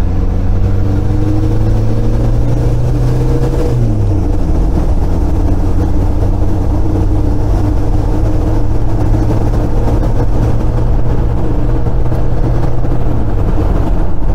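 VW AHU 1.9 TDI diesel engine in a T3 camper van accelerating hard, heard from inside the cab over road noise. The engine note climbs, drops sharply at a gear change about four seconds in, then holds and rises only slowly in the next gear. The engine is down on power and labouring, which the owner is hunting the cause of.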